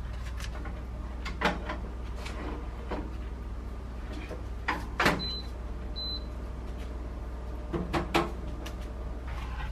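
Metal mesh basket scraping and clattering into a countertop air fryer oven, with its door shutting in a sharp clack about five seconds in. Two short high electronic beeps follow as the oven is set and switched on, then a couple more clicks near the end.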